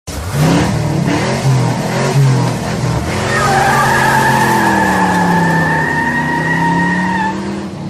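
Car sound effects for an animated logo: an engine revving up and down, then from about three seconds in a long tyre squeal lasting some four seconds over the engine note.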